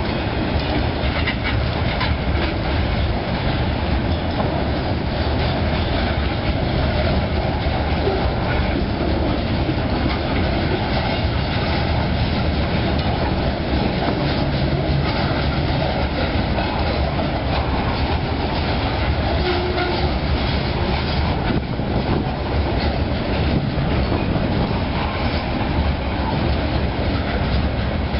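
Freight train of open-top hopper cars rolling steadily past: a continuous loud rumble with the clatter of wheels over the rails.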